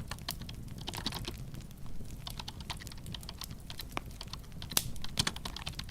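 Fingers typing on a computer keyboard: a quick, irregular run of key clicks over a low steady hum.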